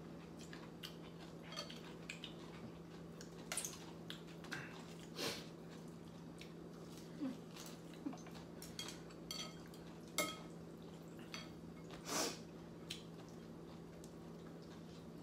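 Spoons and chopsticks clinking against ceramic soup bowls in scattered light clicks, a few ringing briefly, along with soft eating noises. A steady low hum lies underneath.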